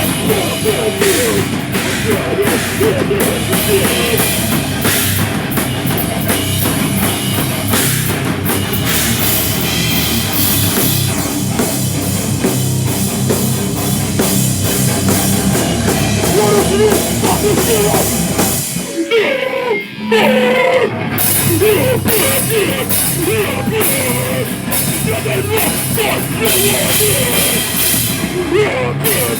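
Live heavy rock band playing loud, with a driving drum kit and guitars. About twenty seconds in the low end drops out for a moment in a short break, then the full band comes back in.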